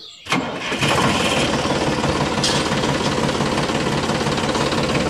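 Tractor engine idling with a steady, knocking rhythm, starting a moment in.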